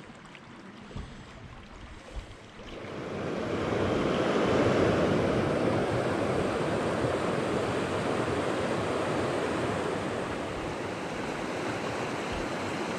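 Small stream rushing over rocks, close to the microphone: quieter at first, then swelling up loud about three seconds in and holding steady.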